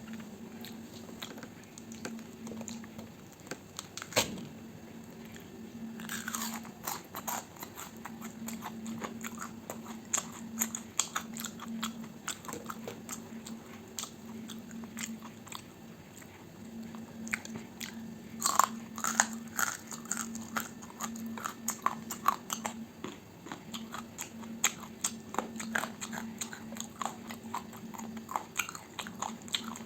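Close-miked eating: a person biting and chewing food, with crunchy bites and many quick wet mouth clicks, thickest about six seconds in and again near eighteen seconds.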